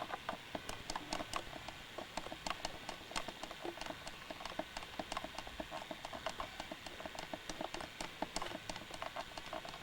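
Rapid, irregular clicking, several faint clicks a second, over low hiss.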